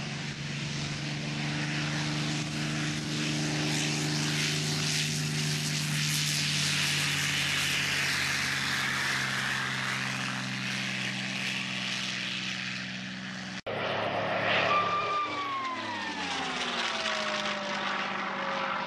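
Piston aero engines running steadily on the ground as the P-51 Mustang taxies, a Robinson helicopter's rotor turning nearby. After a sudden cut, the Mustang's Packard Merlin V-12 passes overhead in flight, its pitch falling as it goes by.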